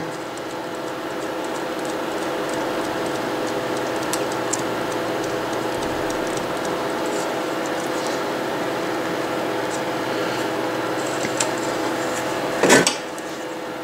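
A bowstring serving jig being turned by hand around the string, its spool of serving thread running with a steady whir as the thread winds on. A short louder noise near the end.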